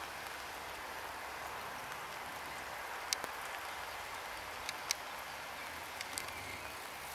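Steady hum of a clustered honeybee swarm, even and without a clear pitch, with a few faint clicks.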